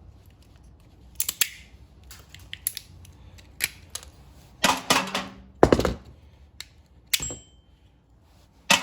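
Small metal and plastic microwave parts being handled and worked by hand: a string of separate clicks and knocks, with a louder clatter and thump about five to six seconds in and a short metallic ping a little after seven seconds.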